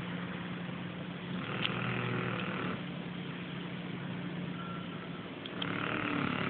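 Snoring: two long, rasping snores about four seconds apart, one about a second and a half in and one near the end, over a steady low hum.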